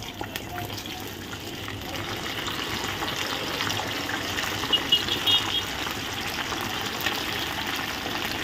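Chicken pieces going into very hot oil for a second fry, the oil sizzling and crackling and growing louder as more pieces go in. A few short light clinks come about halfway through.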